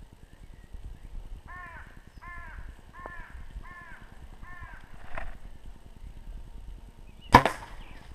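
A compound bow fired: one sharp, loud snap of the string releasing the arrow about seven seconds in. Before it, five harsh calls come in an even series about two-thirds of a second apart.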